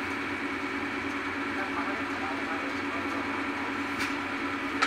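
Tipper truck's engine and hydraulic hoist running steadily as the dump body is raised, a steady mechanical hum. A short sharp click about four seconds in and a louder one near the end.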